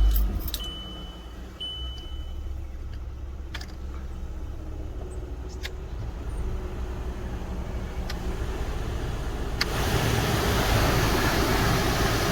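VW Golf Mk5 engine running with a low rumble, a few short warning-chime beeps in the first couple of seconds. About ten seconds in, the freshly cleaned cabin blower fan comes on with a loud, even rush of air and no squeal: the repaired blower running quietly.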